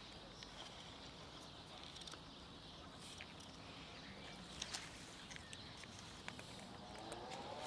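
Cats crunching dry kibble from a plastic tub: scattered crisp clicks of chewing, with a couple of louder crunches a little past halfway.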